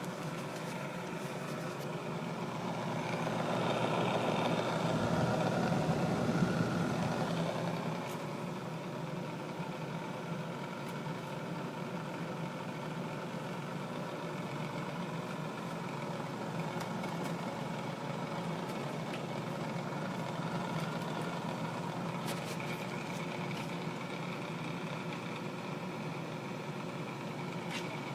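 Bionaire BWF0502M-WM thin window fan running with a horrible, steady noise: its badly made, uneven plastic blades rattle. It grows louder for a few seconds about three seconds in, then settles.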